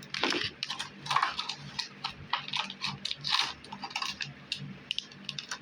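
Small objects and packaging being handled: a quick, irregular run of light clicks, clinks and rustles.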